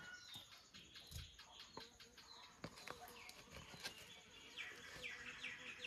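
Very quiet, with a few soft clicks and taps. From about three-quarters of the way in, a bird repeats a short falling chirp about four times a second.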